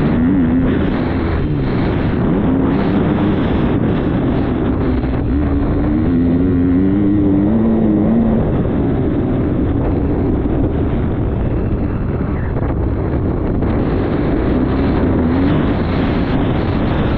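Motocross bike engine running under load, its pitch rising and falling with the throttle, heard through an onboard action camera with wind noise on the microphone.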